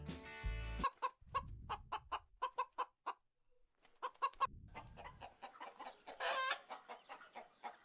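Domestic chickens clucking: a run of short, quick clucks, a brief pause, more clucks, then a louder, longer call near the end.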